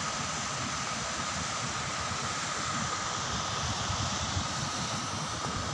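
Wind blowing on the phone's microphone: a steady rushing noise with irregular low buffeting, and a thin steady whine underneath.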